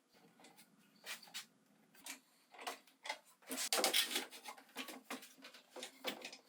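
A run of irregular scraping and rubbing strokes on wood, about a dozen, loudest around the middle.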